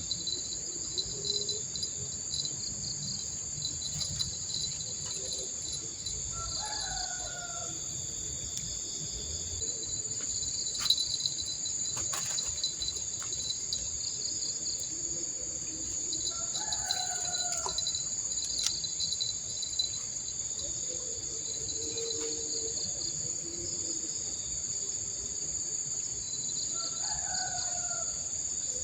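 Steady high-pitched insect drone from crickets or cicadas, with a rooster crowing three times, about ten seconds apart. A couple of sharp clicks come about eleven seconds in.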